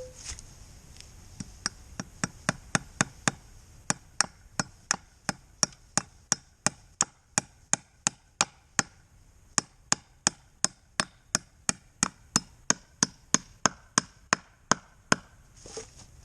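Hammer driving nails into wood: a steady run of sharp strikes, about three a second, starting about a second and a half in and stopping shortly before the end.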